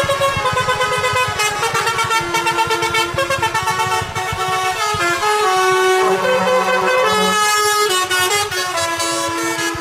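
Lorry telolet horns, multi-note musical air horns, playing tunes over one another, several at once, with quick stepping notes. A lower horn note sounds twice in the second half.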